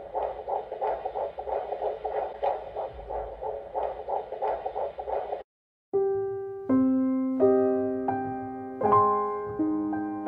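Fetal heartbeat at ten weeks played through an ultrasound machine's speaker: a fast, even whooshing pulse, a good strong heartbeat, until it cuts off suddenly about five seconds in. Slow piano music follows, single notes and chords ringing out and fading.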